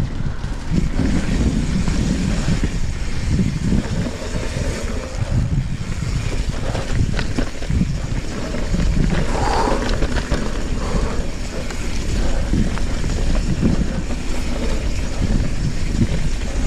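Trek Fuel EX 7 mountain bike ridden along a wet, muddy trail: steady wind rumble on the action-camera microphone, with tyres rolling through mud and short knocks and rattles from the bike over bumps.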